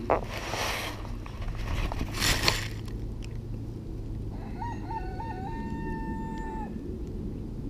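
A rooster crowing once: a single call of about two seconds, starting near the middle, that steps up and down at first and then holds one pitch. Before it come two short bursts of rustling.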